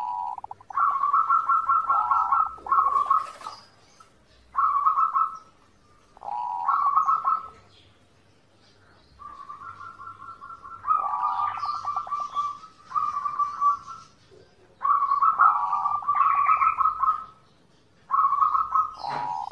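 Zebra dove (perkutut) cooing: about eight phrases, each a rapid run of short pulsed coo notes, with brief pauses between them.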